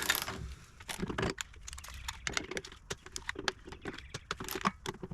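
Hand ratchet clicking in short irregular runs while backing out a tight door-hinge bolt, with a brief rasp right at the start.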